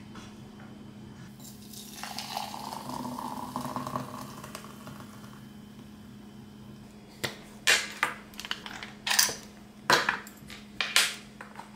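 Kitchenware clatter: about half a dozen sharp clinks and knocks in the second half, after a few seconds of soft hiss, over a steady low hum.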